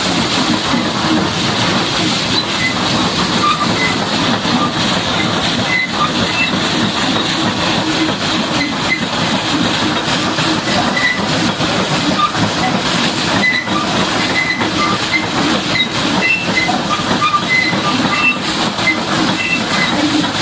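High-pressure water spray hissing steadily as it washes down a bulldozer.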